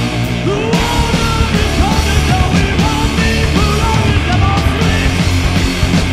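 Rock band playing live: drums, electric guitar and bass guitar, with a man singing into a microphone. The vocal line comes in a little under a second in.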